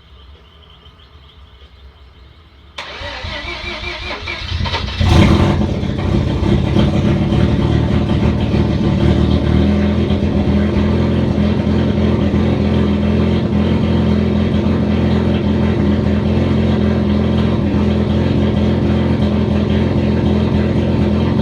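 Drift car engine, freshly fitted with a turbo, on its first start. The starter cranks it over from about three seconds in, it catches with a loud burst of revs around five seconds, and then it settles into a steady idle.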